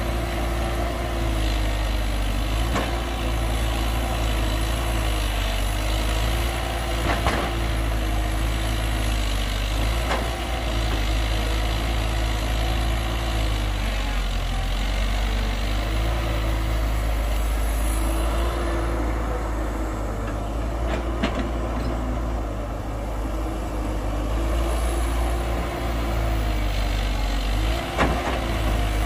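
Heavy diesel earthmoving machinery running steadily: the engines of an excavator loading a dump truck. A mid-pitched tone wavers up and down every couple of seconds, and there are a few sharp knocks.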